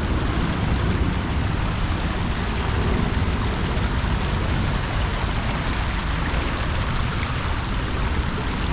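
Jacksons Creek's water rushing steadily.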